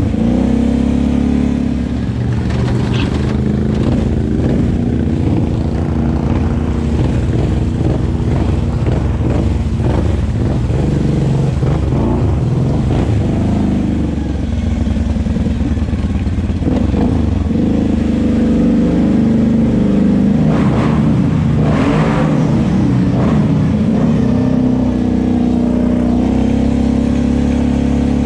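Kawasaki KFX 700 ATV's V-twin engine running while it is ridden, its pitch rising and falling with the throttle, with a few brief clattering knocks.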